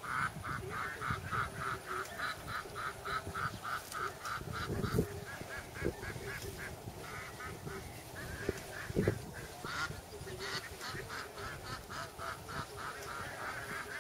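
A bird giving a long series of short, harsh calls, about four a second, with a brief pause midway. Low rumbling and a couple of dull thumps lie underneath.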